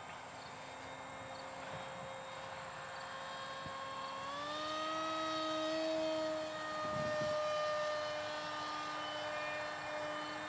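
Electric motor and pusher propeller of a radio-controlled model jet whining steadily in flight. Its pitch and loudness rise about four seconds in, then hold.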